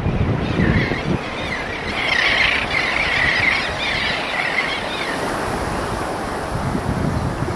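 A flock of terns and gulls calling together in a dense, wavering high chatter over a steady rush of wind and surf. The calling dies away a little past halfway, leaving the wind and surf.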